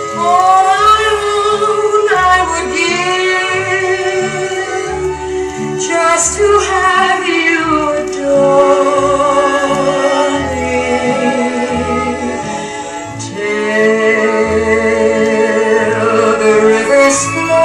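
A ballad with singing and orchestral backing played back through a JBL Hartsfield loudspeaker, with long wavering vocal notes over steady bass notes.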